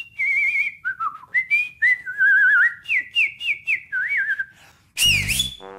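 A man whistling a tune by mouth: a string of short, high notes, many held with a quick warbling trill. About five seconds in a brief, louder sound with a sweeping pitch cuts in.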